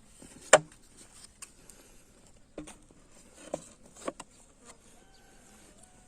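Work on a wooden beehive and its stand: one sharp knock about half a second in, then a few softer knocks and clatters, over faint buzzing of native honeybees.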